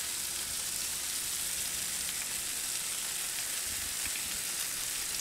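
Steady sizzling of food frying on a hot Blackstone flat-top griddle, as cream is poured into a hot skillet of mushrooms, onions and bacon.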